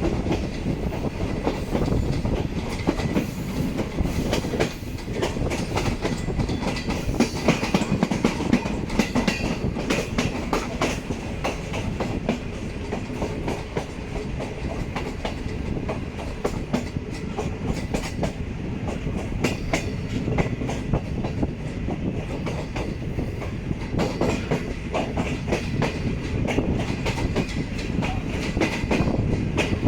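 Passenger train running on the track, its wheels clattering steadily over the rail joints.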